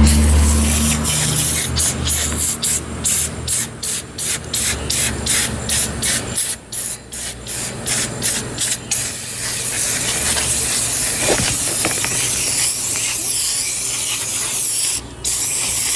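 Aerosol can of foaming coil cleaner spraying onto an air-conditioner condenser coil: a run of short hissing spurts, about two a second, then a long unbroken spray from about nine seconds in.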